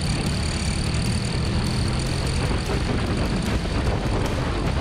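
Motorcycle engine running at track speed under heavy wind rush on the microphone, the engine note easing lower and sinking into the wind noise about halfway.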